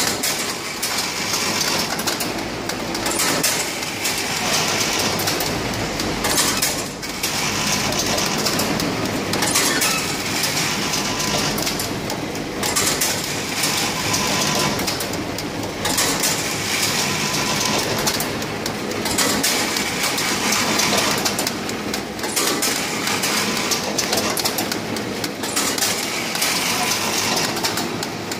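Automatic noodle packing machine running: a steady mechanical clatter from its feed, bundling and wrapping mechanisms, rising and dipping in a cycle that repeats every few seconds.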